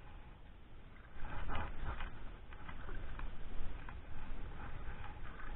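Spinning reel being cranked in, with irregular clicking and rustling that starts about a second in, over low handling noise.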